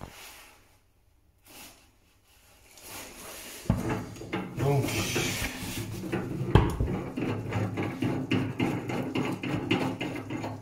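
Quiet at first, then from about four seconds in a dense run of small clicks, knocks and rubbing as a wall-hung toilet's threaded fixing rod is turned by hand and a folding ruler is handled against it. One sharper knock comes about halfway through.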